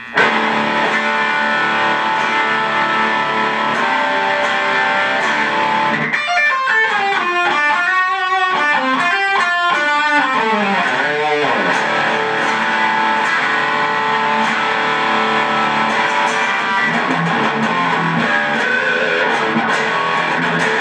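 Electric guitar played through a Boss Katana Mini amplifier on its high-gain brown channel, a steady, loud distorted tone. Held chords give way to a swooping, sliding passage about six seconds in, then more chords and riffing.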